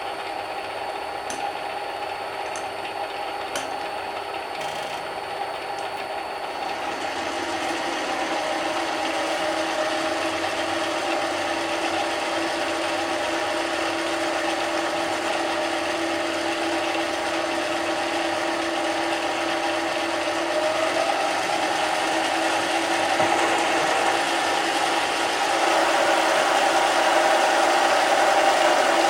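Mini lathe running steadily with its motor and gear whine. It gets louder after about seven seconds and again near the end, with the pitch rising a little around twenty seconds in.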